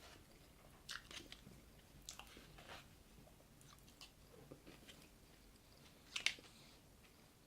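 Faint mouth sounds of a person biting and chewing crispy fried chicken tenders, a few short crunches with the loudest about six seconds in.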